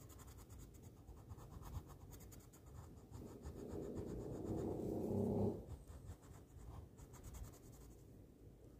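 Colored pencil scratching on paper in quick short strokes while shading in a drawing. A louder low sound builds from about three seconds in and cuts off abruptly about five and a half seconds in.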